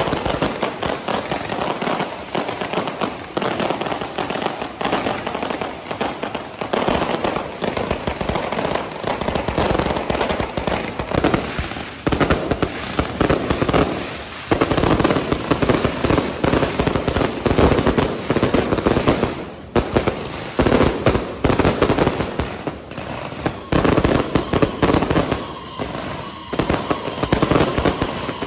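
Firecrackers and fireworks going off in a continuous barrage: rapid overlapping bangs and crackle, with aerial shells launching and bursting overhead and a few brief lulls.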